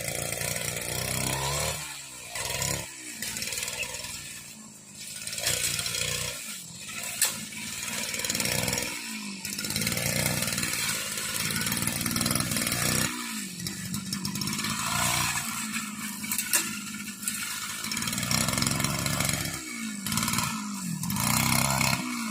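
Petrol brush cutter running while cutting grass, its engine pitch dipping and picking up again many times as it works through the growth.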